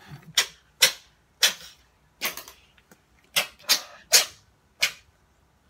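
Persian cat sneezing repeatedly, about eight quick, sharp sneezes in a row.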